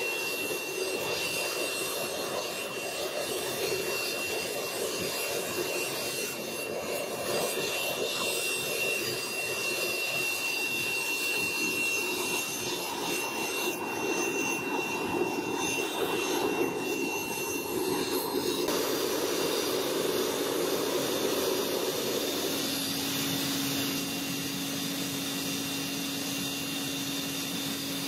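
Gas-fired forge burner running steadily, heating a steel blade to hardening temperature. The sound shifts about two-thirds of the way through, and a steady low hum joins near the end.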